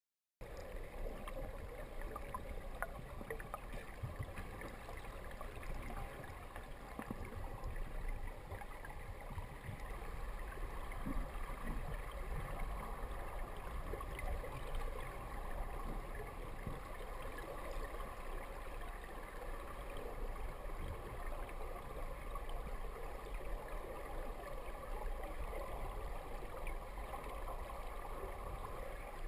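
Flowing river water heard underwater through a camera's waterproof dive housing: a steady, muffled rush with faint scattered clicks and crackles.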